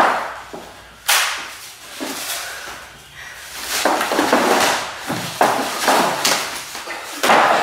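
Movement sounds of two performers: a series of about seven sharp, hissy sounds, each dying away over a fraction of a second, echoing in a bare room.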